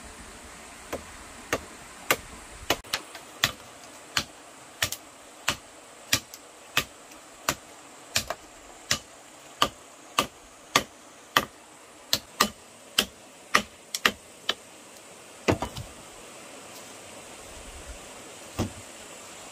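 A long run of sharp knocks or taps, about one and a half a second, evenly paced, stopping a few seconds before the end with one last knock near the end.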